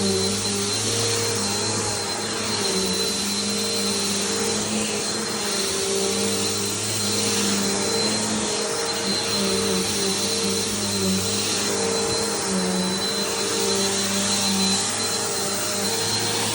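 Bissell PowerForce Bagged upright vacuum cleaner running steadily while vacuuming, a motor hum with a thin high whine over a rush of air.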